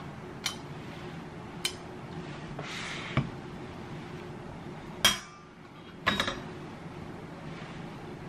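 Stainless steel wire egg slicer clicking and clinking as boiled eggs are sliced and handled on a wooden board. There is a short scrape about three seconds in, and the sharpest clicks come about five and six seconds in, over a faint steady hum.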